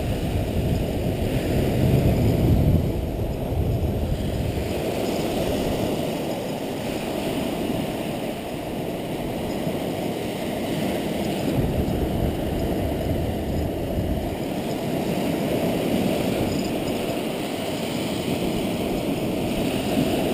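Steady rush of surf on the beach, swelling a little near the start and again later on, with a low uneven rumble underneath.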